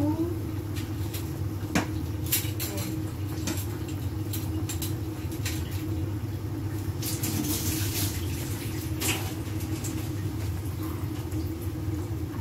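A pot of fish broth boiling on a gas stove burner, with scattered bubbling pops and clicks over a steady low hum.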